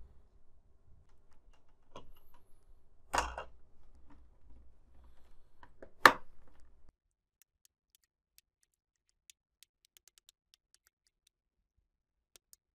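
Plastic display bezel of a Lenovo IdeaPad G50-70 being pressed onto the screen lid, its clips clicking into place: a few sharp clicks, a stronger snap about three seconds in and the loudest about six seconds in, then near silence.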